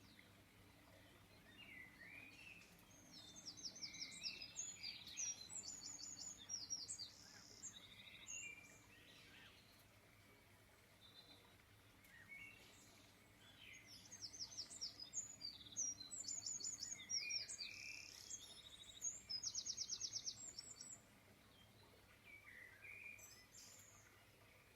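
Small songbirds singing: two bouts of quick, high repeated chirps and trills, starting about three seconds in and again around thirteen seconds, with scattered single calls between and a faint steady low hum beneath.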